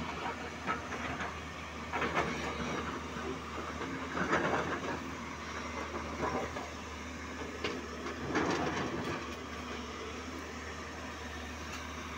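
JCB tracked excavator's diesel engine running steadily under load while it loads quarry rock into a steel tipper truck body. Rough clattering of stone hits at about two, four and eight seconds in, the one around four seconds being the loudest.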